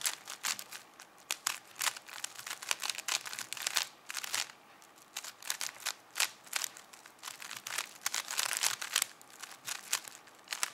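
5x5 speedcube's plastic layers clicking and clattering as they are turned in fast runs of moves with brief pauses between them, during the final 3x3 stage of the solve.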